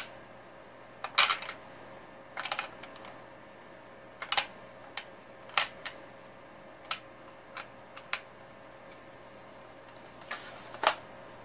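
Irregular sharp clicks and taps of EPROM chips being picked up and set down on the bench and into a grey plastic tray, about a dozen in all, with the loudest about a second in and near the end.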